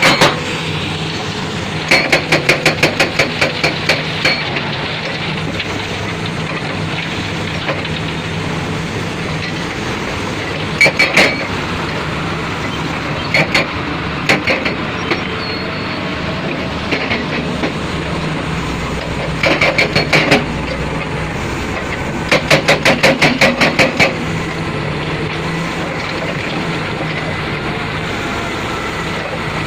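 Heavy-equipment diesel engine running steadily, broken by several bursts of rapid, evenly spaced metallic knocks, about seven a second, each lasting one to two seconds.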